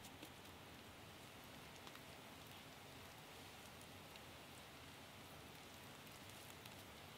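Near silence: a faint, even hiss with scattered soft ticks.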